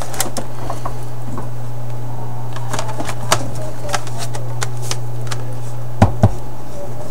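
Steady low hum, with scattered light clicks and taps of a tablet's plastic parts being handled, and two sharper knocks about six seconds in.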